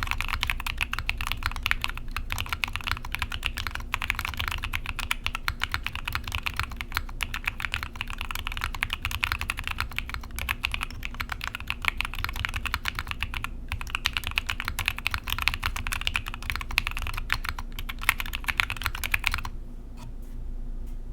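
Fast continuous typing on a gasket-mounted 60% mechanical keyboard with Tecsee Ice Grape linear switches (polycarbonate housings, UHMWPE stems, lightly pre-lubed), a polycarbonate plate and GMK keycaps: a dense run of keystroke clacks that stops near the end.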